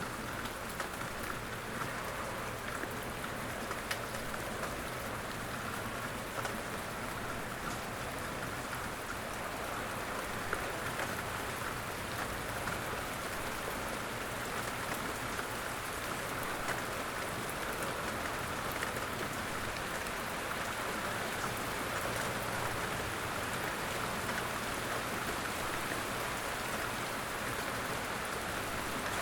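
Steady outdoor rain falling on surfaces, a continuous patter with scattered distinct drop ticks.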